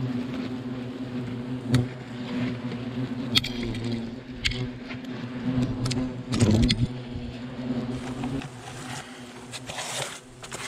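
European hornets buzzing around a beekeeping suit, a steady low hum with one hornet passing close by about six and a half seconds in. A few sharp taps sound through it, and the hum stops about eight seconds in.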